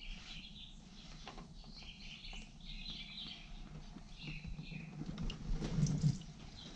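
Birds chirping in short phrases, with a few faint knocks and handling sounds.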